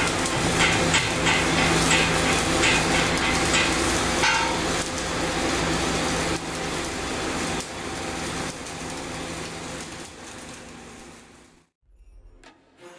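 CO2 (MIG) welding arc on a pipe root pass: continuous crackling and sputtering over a steady low hum. It fades over the last several seconds and cuts off near the end.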